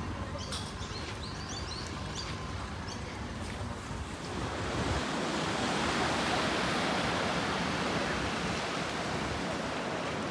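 Waves washing onto a sandy beach, a steady hiss of surf that grows louder about four and a half seconds in. Wind rumbles on the microphone throughout, and a few short high chirps come in the first few seconds.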